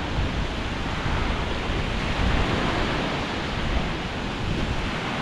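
Sea waves washing on the beach with wind on the microphone: a steady, even wash of noise.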